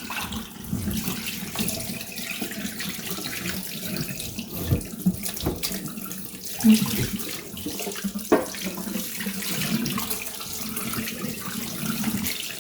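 Running tap water splashing over a raw turkey as it is rinsed clean of fat and feather bits, with a few knocks and bumps as the bird is handled, the loudest about halfway through.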